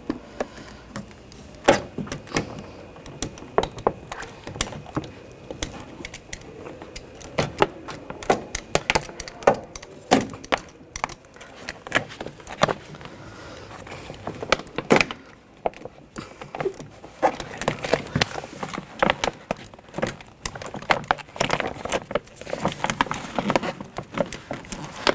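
Irregular clicks, taps and rattles of hands and a tool working on a car door's inner shell, with bursts of rustling in the second half.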